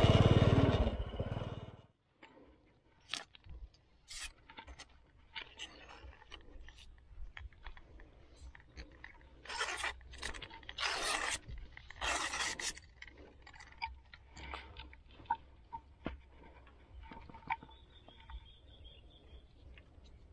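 Motorbike engine and rushing wind while riding, cutting off about two seconds in. After that, scattered clicks, taps and short scrapes of a fishing rod and tackle being handled, with a few longer scraping noises in the middle.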